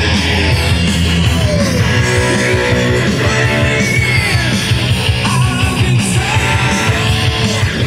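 Electric guitar played through an amplifier: a rock lead with bent notes over steady low notes.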